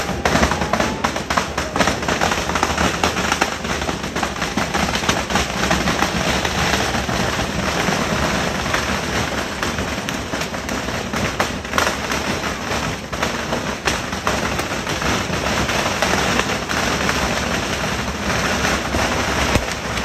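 Firecrackers and fireworks going off in a dense, unbroken crackle, countless bangs running into one another.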